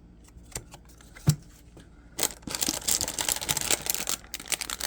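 Plastic packaging crinkling and rustling as the kit's bagged parts are handled, for about two seconds in the second half, after a light click and a short knock.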